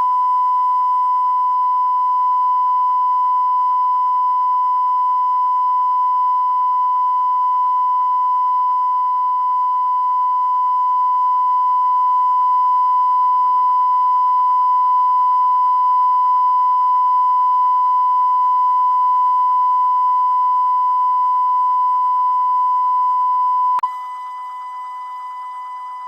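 A steady electronic censor tone near 1 kHz, dubbed over the weather radio audio to mask a squealing toilet. About 24 seconds in it drops sharply in level, and a second, lower tone joins it.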